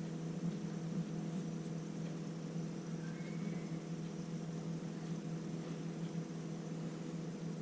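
Steady low background hum, even and unchanging, with no distinct tool or handling sounds.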